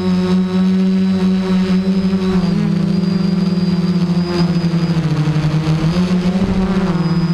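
Motors and propellers of a Hoverthings Flip FPV quadcopter, heard from its onboard camera in flight: a steady pitched drone with many overtones whose pitch shifts with throttle. It dips lower about five seconds in, then climbs and drops back near the end.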